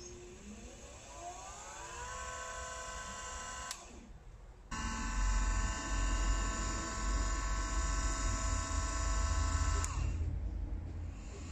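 Small electric motor of a homemade lathe tool post grinder whining as it soft-starts, its pitch rising smoothly and then holding steady at speed. It cuts out briefly about four seconds in, runs steady again with a low rumble beneath it, then stops near the end and begins ramping up again.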